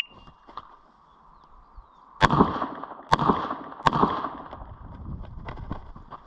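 Three 9mm pistol shots from a Glock 19, a little under a second apart, each ringing out briefly. A few faint clicks follow.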